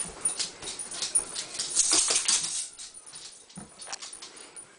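Whippets and a cat scuffling over a toy on a laminate floor: quick clicks and scrabbling, loudest about two seconds in, quieter after.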